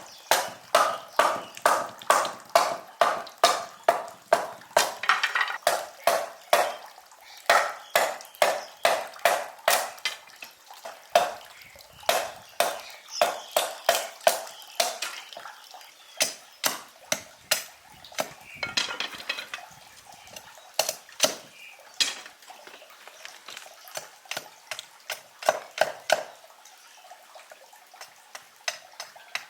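A blade chopping at wood in quick sharp strokes, about two to three a second, in runs with short pauses.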